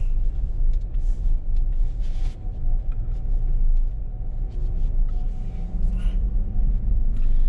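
Steady low rumble of a moving vehicle, road and engine noise, with a few short knocks along the way.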